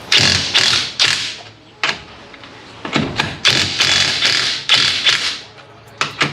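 Floor jack being pumped by hand to lift a car, a run of repeated strokes that come about two to three a second in the middle.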